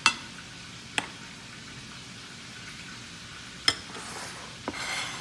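Four sharp clicks: one at the start, one about a second in, and two near the end. Under them runs the steady, faint sizzle of cooking oil frying.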